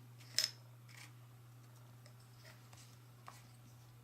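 Wooden jigsaw puzzle pieces clicking and tapping as they are handled and pressed into place: one sharp click about half a second in, then a few fainter taps. A low steady hum runs underneath.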